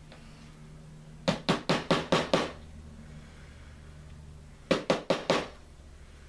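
Small hammer tapping clear push pins into cork roadbed over model railroad track: a quick run of about six taps, then about four more a few seconds later.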